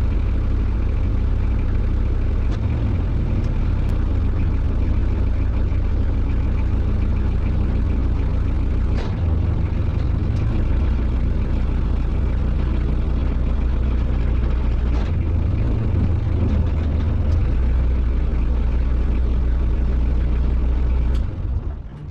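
Small fishing boat's engine running steadily at low revs while under way, dropping away shortly before the end.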